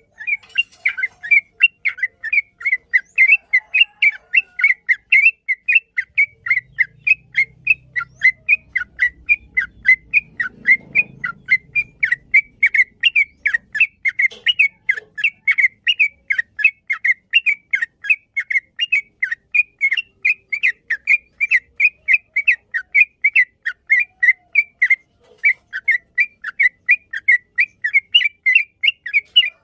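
Yellow-vented bulbul (trucukan) singing its long 'ropel' song: a continuous run of short, quick chirping notes, about three a second, with no real pause. A faint low rumble sits under it for a few seconds midway.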